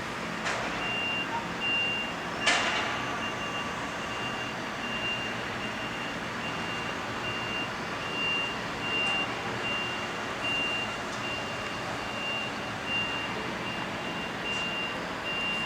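A vehicle's reversing alarm beeping, one high tone repeating at even intervals less than a second apart, over steady background noise. A sharp knock sounds about two and a half seconds in.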